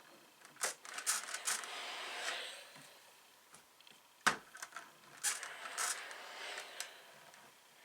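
Fabric and sewing tools being handled on a work surface: rustling with a run of clicks and taps, and one sharp knock about four seconds in.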